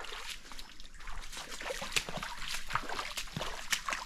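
Irregular splashing and sloshing of water with scattered crackles, as of people wading through a shallow river pool.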